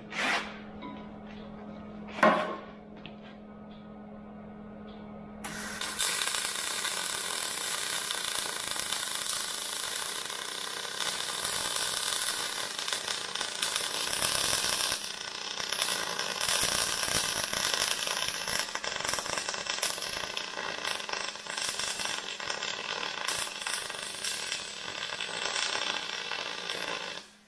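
Electric arc welding: a steady low hum with a couple of sharp clicks, then about five and a half seconds in the arc strikes and crackles and spits continuously for some twenty seconds, cutting off suddenly just before the end. The welder is re-welding a cracked weld on the bale handler.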